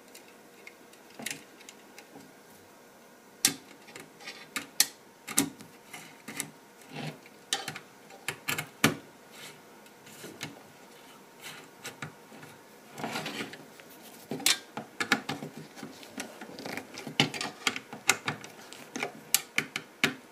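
Irregular small clicks, taps and scrapes of a screwdriver working the metal screw terminals of a Mean Well LRS-100-24 switching power supply while power-cord wires are fastened into its L and N terminals. The taps are sparse at first and come thick and fast in the second half.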